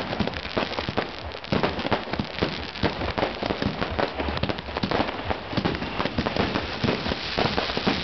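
Fireworks display going off in a dense, continuous barrage of bangs and crackling pops.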